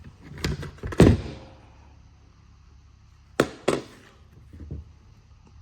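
Handling noise from a Romanian Draco AK-pattern pistol and its magazine: a handful of sharp clacks and knocks, the loudest about a second in and a quick pair a few seconds later, with softer knocks near the end.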